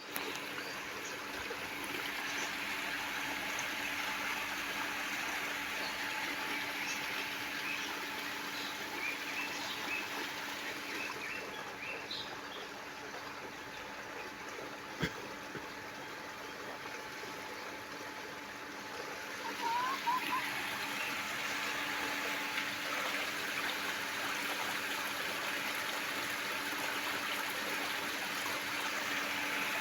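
Small birds chirping in short calls over a steady, water-like noise. A faint low hum runs underneath, and a single sharp click comes about halfway through.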